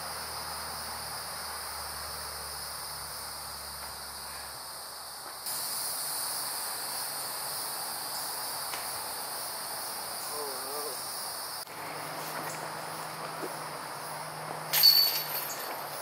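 Insects chirring steadily in several layers of high-pitched drone. Near the end there is one short, loud clatter.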